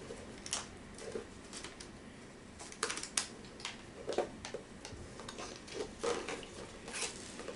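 Scattered light clicks and taps of toy packaging being handled as a doorbell eyeball toy is eased out of it, bunched about three seconds in and again near the end.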